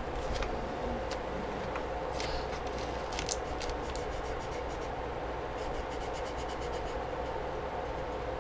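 Steady low background hum with a few faint, short scrapes and ticks.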